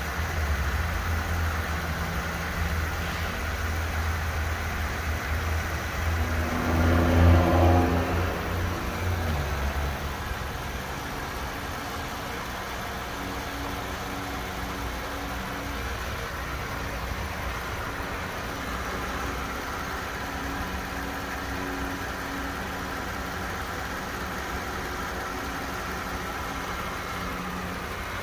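2015 Jeep Wrangler's 3.6-litre Pentastar V6 idling, with one brief rev rising and falling about a quarter of the way in, then a steady idle.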